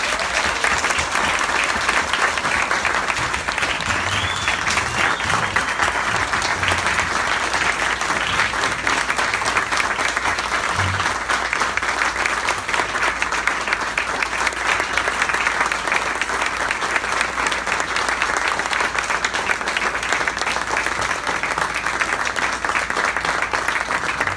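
Sustained applause from a roomful of people, a dense, steady clapping.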